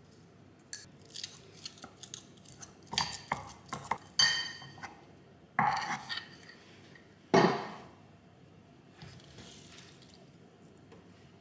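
Kitchen dishes and glassware being handled: a run of separate clinks and knocks, with one ringing clink about four seconds in and the loudest knock about seven seconds in.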